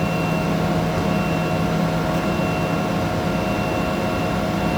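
Steady electric hum of a running industrial machine: a low drone with a few fixed higher tones above it, unchanging throughout.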